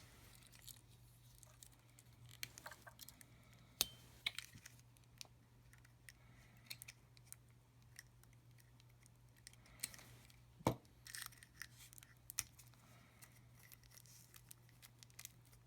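Scattered small clicks, taps and light rustles of a metal ballpoint pen and its packaging being handled, with the loudest clicks about 4 and 11 seconds in, over a faint steady low electrical hum.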